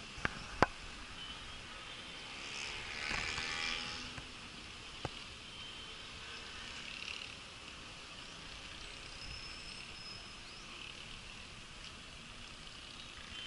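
Distant city ambience from a high window: a steady hiss of far-off traffic with a high chirring edge. A couple of sharp clicks come about half a second in, and another around five seconds.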